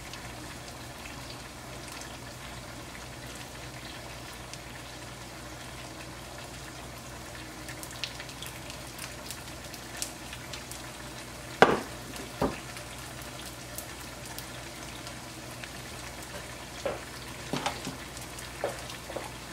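Panko-crusted halibut fillets frying in butter and oil in a pan, a steady sizzle with scattered small pops. A couple of sharp knocks stand out in the middle.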